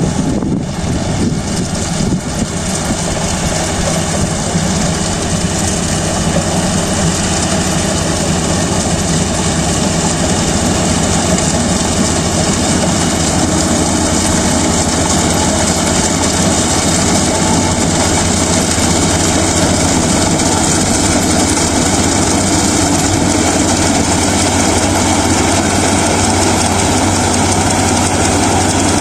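Kubota DC-35 rice combine harvester running steadily while harvesting, its diesel engine and machinery making a loud, even drone.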